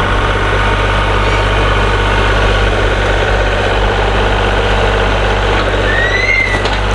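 Kubota tractor's diesel engine running steadily, with a brief high squeak about six seconds in.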